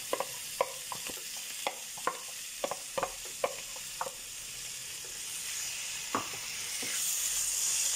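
Diced peppers, carrots and baked beans frying in a pan: a sizzle with sharp crackling pops through the first half, growing louder near the end as a wooden spatula starts stirring.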